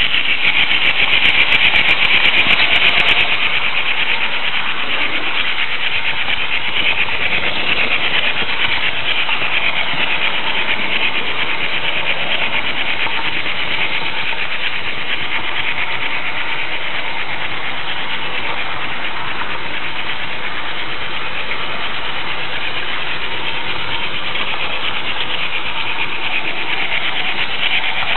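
Märklin H0 model train running along the track, a steady whirring rumble of wheels and motor picked up close by the camera riding on the flat car, a little louder for the first few seconds.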